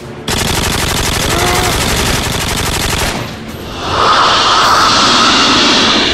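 Rapid automatic gunfire sound effect, one continuous burst of about three seconds. After a short pause, a loud, harsh, sustained alien screech.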